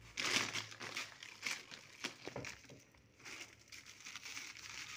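Plastic rustling and crinkling from a woven plastic sack and a plastic bag of coarse salt being handled as salt is spread over black olives, in irregular bursts, with a short lull about three seconds in.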